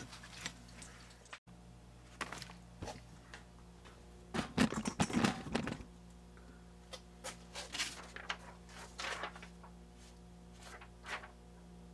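Scattered faint knocks and rustles over a steady low hum, with the busiest cluster of knocks about four to six seconds in.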